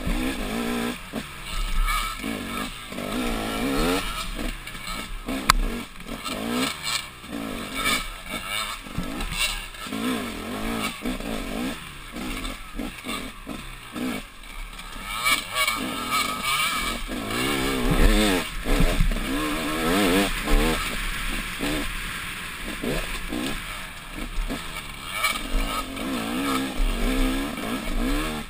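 Dirt bike engine heard from on board, revving up and down over and over as the throttle is worked along a rough trail, with occasional knocks from the bike hitting the ground.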